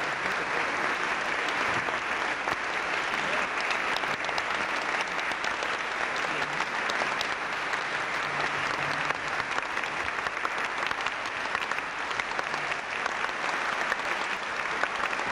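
Audience applauding: many hands clapping at an even, steady level.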